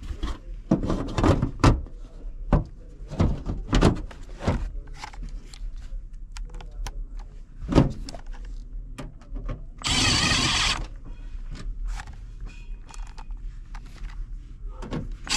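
Hand-tool work on an HVAC unit: a run of irregular knocks, clicks and clatter of tools and metal parts being handled. About ten seconds in there is a short rushing burst of noise, and another right at the end, over a constant low hum.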